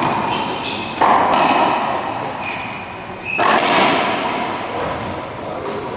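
Racquetball rally: the ball smacks off racquets and the court walls, with a loud hit about a second in and another about three and a half seconds in, each ringing on in the enclosed court. Short high squeaks, as of sneakers on the hardwood floor, come between the hits.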